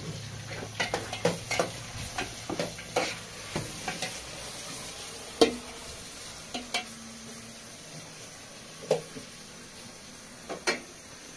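Metal spoon stirring in a cooking pot on a gas burner, clinking and scraping against the pot: a quick run of knocks over the first few seconds, then a few single clinks, over a steady hiss.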